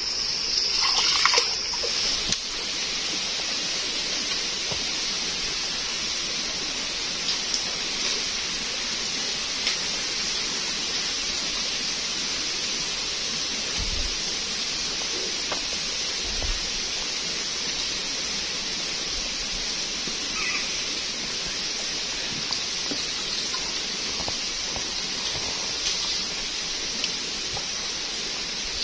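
Steady wash of running water in a small stream, with a couple of soft low knocks about halfway through.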